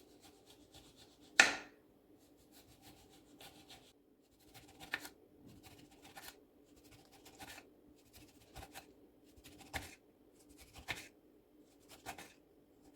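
Knife slicing a whole lemon, peel on, into thin slices: soft, short cutting strokes about one a second, after a single sharper knock about a second and a half in.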